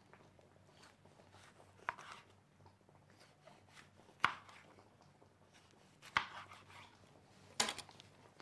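Kitchen knife cutting a bell pepper into rings on a board: four sharp, separate knocks spaced about two seconds apart over a faint low hum.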